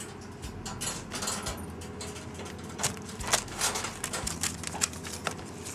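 Irregular light clicks, taps and scratches of a kitten playing alone with a small toy on the floor of a wire cage, busiest near the middle and end.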